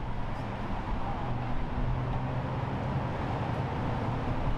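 Steady outdoor background noise with a low, even engine-like hum under it.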